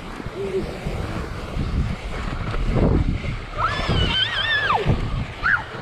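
Wind buffeting the microphone over the rumble of a fat-tire mountain bike's knobby tyre rolling through snow while towing a sled. About two-thirds of the way in a child gives a high, wavering squeal lasting about a second, with a brief shorter one near the end.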